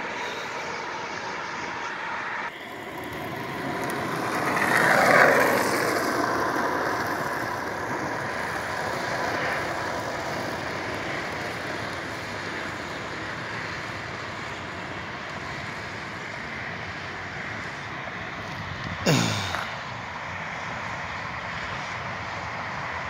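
Road traffic going by, one vehicle swelling and fading about five seconds in, over steady outdoor noise. A short sudden sound that drops in pitch comes near the end.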